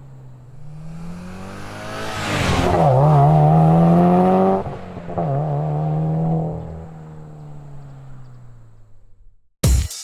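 Subaru WRX STI's turbocharged flat-four engine heard through an HKS aftermarket muffler: the exhaust note climbs about two seconds in and holds loud for a couple of seconds, dips, swells once more, then fades away. Music with a drum beat cuts in at the very end.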